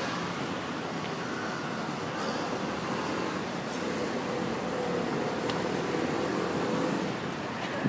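Steady city-street ambience: a continuous hum of road traffic, with a faint engine tone through the middle.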